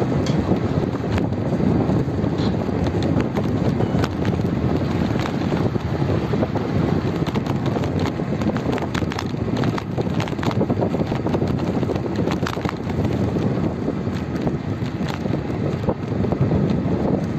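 Wind rushing over a phone microphone moving along a road: a steady low rumble with scattered small clicks and knocks.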